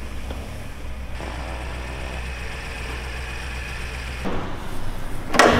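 Engine idling with a steady low drone: a 2018 BMW X6 M's twin-turbo V8, in for a misfire and rough running. The drone changes to a different hum about four seconds in, and a short loud noise comes near the end.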